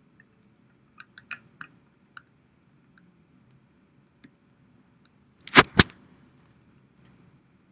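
Scattered light clicks and taps over a faint low room hum, then two sharp knocks in quick succession about five and a half seconds in.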